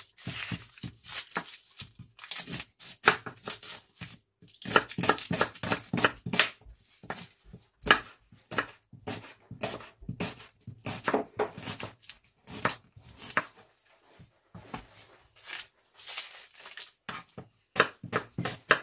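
Knife chopping unpeeled onions on a wooden cutting board: irregular knocks of the blade on the board, mixed with the rustle of dry onion skins.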